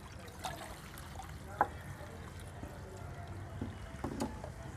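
Water being poured from a plastic watering can into a steel tumbler, faint, with a few light clinks and knocks, the sharpest about one and a half seconds in.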